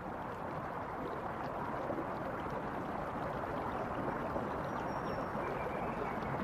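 Running water of a stream or river, a steady rushing with no let-up.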